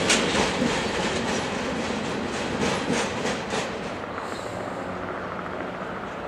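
Freight wagons loaded with steel coils rolling past, their wheels clicking over rail joints. The clicking stops after about three and a half seconds and the rolling sound fades as the end of the train goes by.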